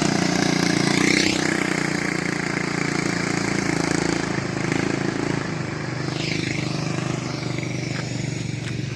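A small engine running steadily, easing off slightly about five seconds in.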